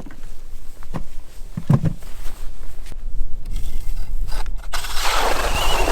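Wind buffeting the microphone with a steady low rumble, a few short knocks in the first two seconds, and a louder scraping rush from about five seconds in.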